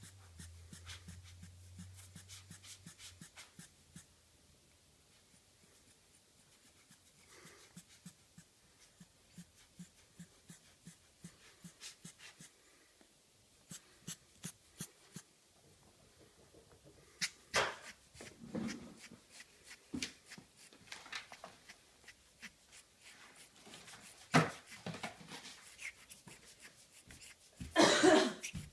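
A cat pawing and biting at a rubber air-blower bulb and its plastic nozzle: a run of light clicks and scratches, with a few louder rustling knocks, the loudest near the end.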